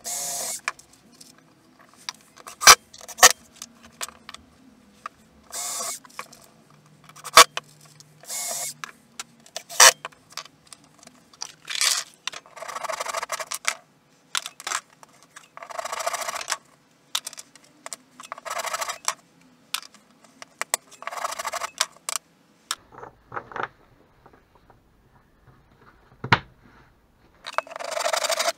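Bench woodworking sounds: short bursts of a cordless drill boring into small wooden blocks, coming every few seconds, with sharp single knocks in between, and a hand saw cutting a wooden strip near the end.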